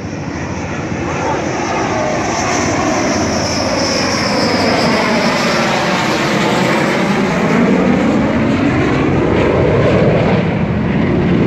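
Jet noise of a Dassault Rafale fighter, its twin M88 turbofans, as it flies low overhead on its landing approach. The rumble grows steadily louder, with a high whine for a few seconds about two seconds in.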